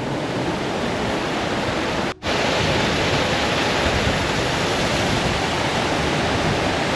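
Steady rush of water falling and running through a narrow rock gorge, cutting out for a moment about two seconds in.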